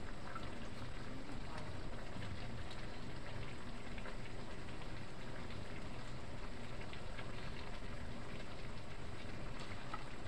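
Cubed squash and vegetables cooking in a sauce in a nonstick frying pan: a steady sizzle and simmer with scattered small pops.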